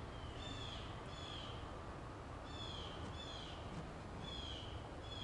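A bird calling: short calls that fall in pitch, given in pairs, about six in all, over a steady low background rumble.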